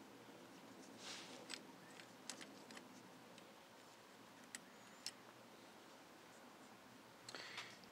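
Near silence with a few faint, sharp clicks of small metal brake parts being handled and fitted onto a hydrostatic transmission, and a soft rustle of gloved hands near the end.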